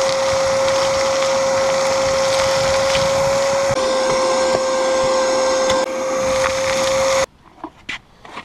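Ridgid wet/dry shop vacuum running with a steady motor whine while sucking up loose dry soil, grit ticking through the hose. It stops abruptly about seven seconds in, followed by a few light knocks as the pleated filter is handled.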